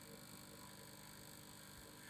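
Faint, steady vibrating hum made of several held tones, even throughout.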